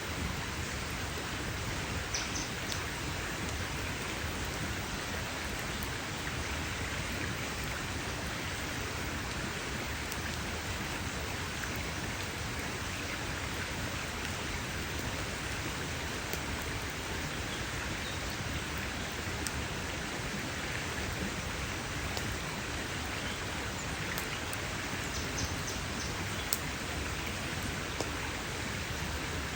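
Wood campfire crackling: a steady hiss with scattered small pops, a sharper pop about two seconds in and another near the end.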